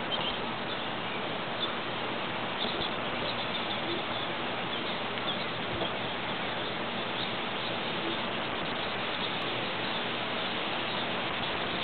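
Steady outdoor background hiss with a few faint, short bird chirps, near the start and again about three seconds in.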